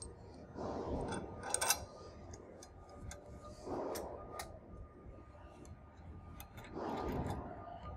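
Scattered light metallic clicks and knocks with glove rustling as a steel tensioner base and its fasteners are handled and fitted against a steel mounting bracket.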